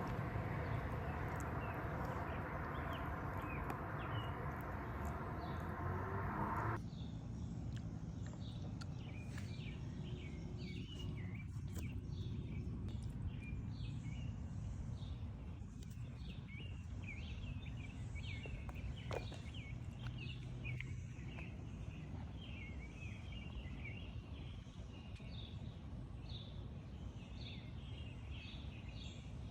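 Small birds chirping again and again over a steady low outdoor rumble. A louder hiss covers everything for the first several seconds and cuts off suddenly about seven seconds in.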